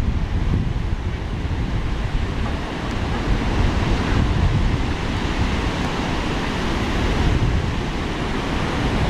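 Ocean surf breaking on a sandy beach, a steady wash of noise, with wind rumbling on the microphone.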